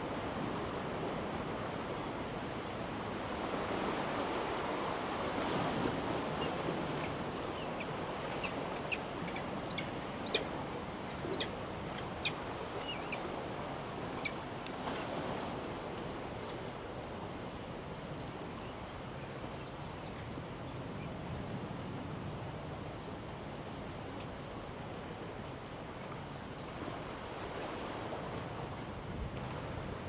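Steady wash of sea surf, with a scattering of short, high bird calls: a cluster between about six and fifteen seconds in, and a few fainter ones later.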